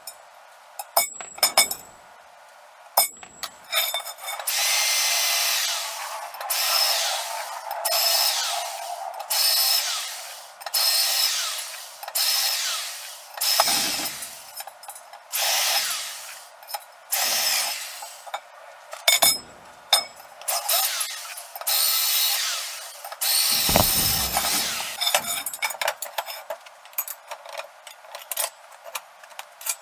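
Power drill boring holes through steel square tubing, running in repeated bursts of a second or two with short pauses between. A few sharp metal taps come before the drilling starts.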